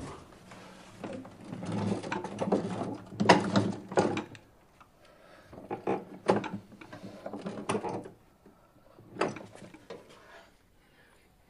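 A run of mechanical knocks and rattles from something being handled, in several bursts, loudest about three seconds in, then dying away near the end.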